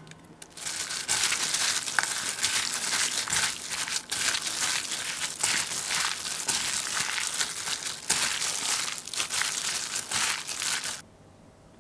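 A hand in a disposable plastic glove tossing sliced pork, onion and green onion in a thick chili-paste marinade in a stainless steel bowl: the glove crinkling and the wet marinade squishing, continuously, until the mixing stops abruptly near the end.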